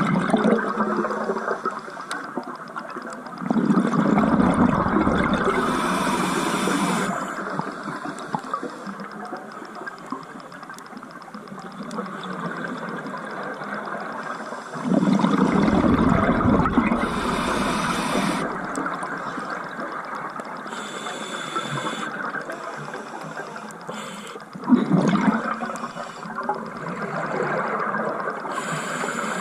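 Scuba diver breathing through a regulator underwater: three long rushes of exhaled bubbles, about ten seconds apart, over a steady underwater hiss.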